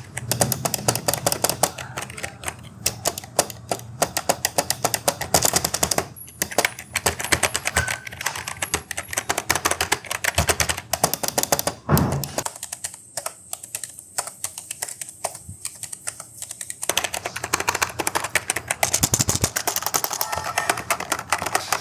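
Typing on a Redgear Blaze 7 membrane gaming keyboard: a fast, dense run of key clacks that thins out to slower, sparser strokes for a few seconds just past the middle, then picks up again.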